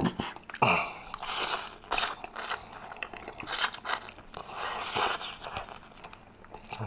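A person slurping spaghetti noodles off a fork and chewing them, a series of sucking slurps in close succession.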